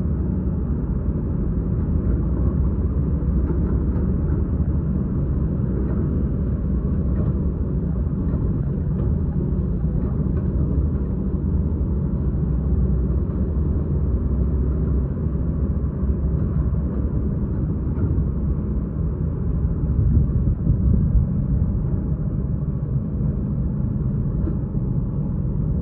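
Heavy diesel engine of a hydraulic excavator running steadily as it works, a low rumble with a few faint knocks, swelling slightly about twenty seconds in.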